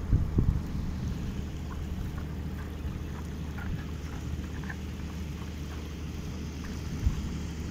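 Wind rumbling on the phone's microphone, surging near the start and again about seven seconds in, over the faint wash of muddy floodwater running down the road.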